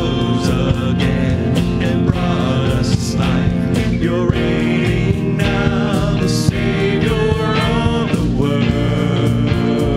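Live worship band playing a rock-style praise song: a lead singer and backing vocalist singing over electric guitars, bass, drums and keyboard.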